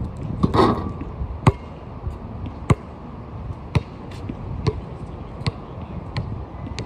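Basketball bouncing on an outdoor court: sharp single bounces about a second apart, coming slightly closer together, after a brief rattle near the start. Steady wind noise underneath.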